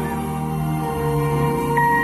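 Background music, soft and ambient, with long held notes.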